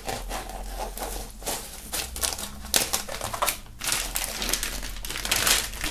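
Transparent plastic foil crackling and crinkling as a utility knife slits it open and hands pull at the sleeve. A run of quick crackles that is loudest near the end.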